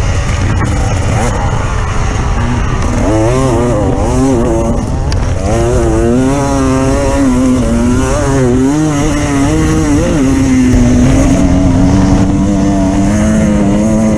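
Off-road vehicle engine running hard, its revs rising and falling again and again, then holding steadier and climbing slightly near the end.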